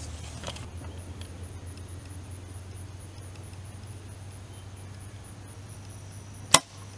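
Compound bow shot from full draw: a single sharp crack of the string and limbs as the arrow is released, about six and a half seconds in.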